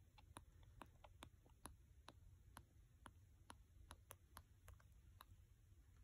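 Faint, rhythmic clicks, about two a second, of a newborn sucking and swallowing on a bottle's nipple during a slow, paced feed.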